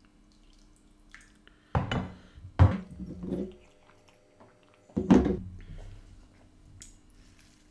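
Tableware set down on a table: three sharp knocks, two close together a little under two seconds in and one about five seconds in, each followed by a short ring. These are the small curry bowls and then the drinking glasses being put down.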